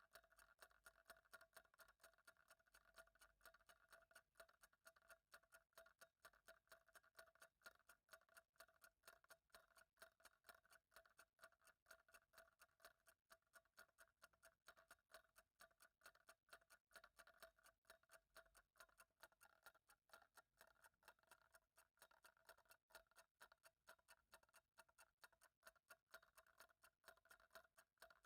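Ticking clock: faint, quick, even ticks, a few to the second, running steadily.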